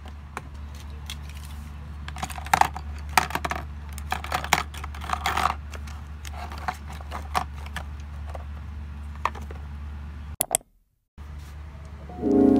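Hands arranging stationery in a white plastic desk organizer: a run of light clicks, taps and rustles over a steady low hum. Soft music comes in near the end.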